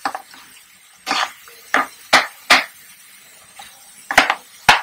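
Plastic spatula knocking and scraping against a nonstick frying pan as boiled, mashed potatoes are pressed and mixed into the masala: about six short strokes at uneven intervals.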